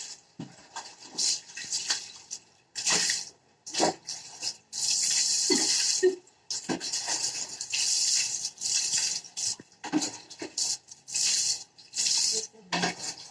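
Water splashing and pouring over a cat during its bath, in irregular bursts of a fraction of a second to about two seconds, with short pauses between.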